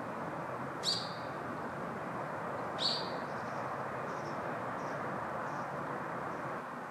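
A bird calling twice, about two seconds apart: each call is short and sharp, dropping quickly in pitch and then holding briefly, with a few fainter calls after. Underneath is a steady outdoor background hiss.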